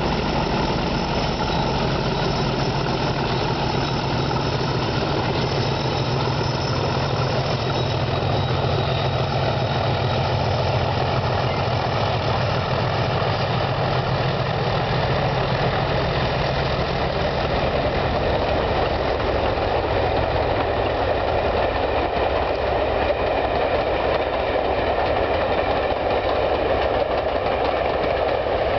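Two British Rail Class 37 diesel locomotives, each with an English Electric V12 engine, working hard up a steep climb. Their engine note fades out more than halfway through as they pull away, leaving the rolling wheel noise of the passing coaches.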